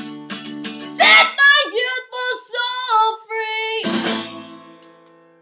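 Acoustic guitar strummed with singing over it: a sung line after a few strums, then a final strum that rings out and fades away as the song ends.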